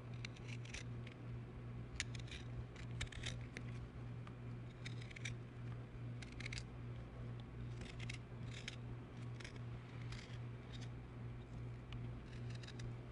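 A metal spoon scraping the skin off a fresh ginger root in short, quick strokes, coming in little runs of several scrapes with brief pauses between, over a low steady hum.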